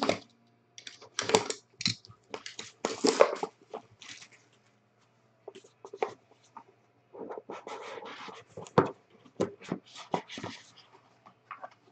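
Hands tearing and crinkling the plastic wrap off a trading-card box and handling the cardboard: irregular scratchy rustles and tears, with a short lull in the middle.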